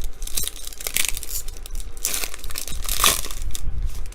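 Plastic trading-card pack wrapper crinkling as it is torn open and handled, in about three bursts of crackling.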